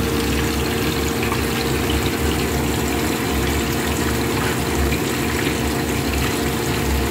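Whole fish frying in hot oil in a pan: a steady sizzle and bubbling from the oil, with a steady low hum underneath.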